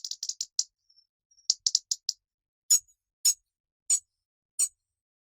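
Robin giving sharp, high ticking calls: two quick runs of about five ticks each, then four single, sharper ticks a little over half a second apart.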